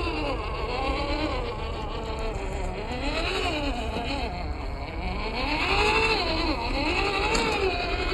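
Electric motor and gearbox of a WPL Toyota FJ40 RC truck whining, the pitch rising and falling in slow swells as the throttle is worked.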